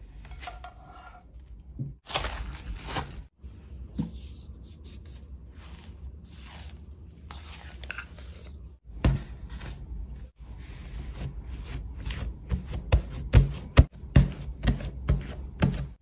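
Kitchen food-prep handling sounds: scraping and rustling, then a run of sharp knocks and thuds as dough is handled and flattened on a countertop. The knocks come several to a second and are loudest near the end.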